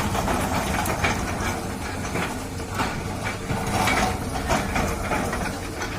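Doosan DX200A hydraulic excavator at work: its diesel engine runs steadily while metal clanks, knocks and scrapes come every half second or so as it digs earth and rock.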